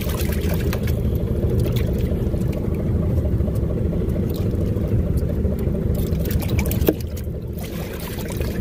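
A small boat's engine running with a steady low rumble, under seawater pouring from a hose into a bleeding tub and splashing. The noise dips briefly about seven seconds in.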